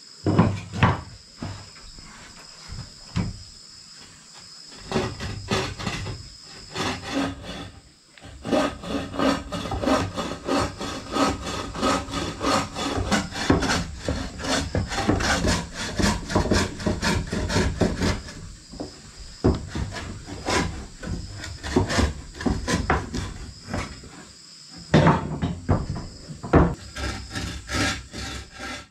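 Hand bow saw cutting through a wooden board in quick back-and-forth strokes. A few wooden knocks come first, the sawing starts about five seconds in, and it stops briefly near the end before a few more strokes.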